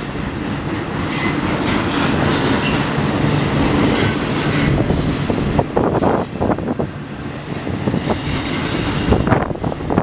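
Double-stack intermodal train's well cars rolling past, steel wheels squealing with thin high-pitched tones over the rolling rumble. Short clunks and knocks come from the cars in the second half.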